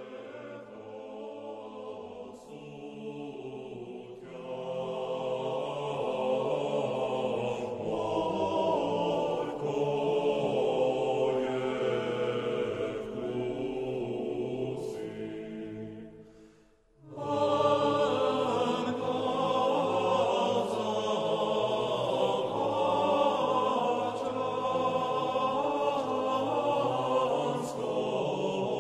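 Choir singing a song. It builds over the first few seconds, drops almost to silence about two-thirds of the way through, then comes back louder.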